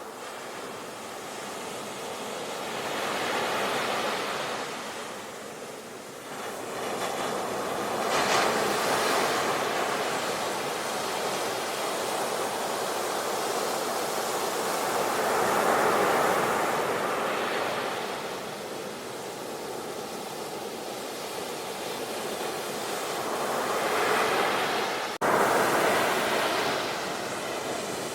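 Ocean waves breaking and washing in, the surf swelling and fading every several seconds. About 25 seconds in the sound cuts abruptly and comes back louder.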